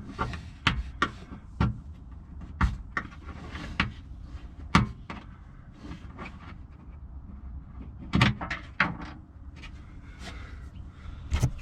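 Plastic car trim and pop clips being worked loose by hand: a run of irregular sharp clicks and knocks, the loudest about five seconds in.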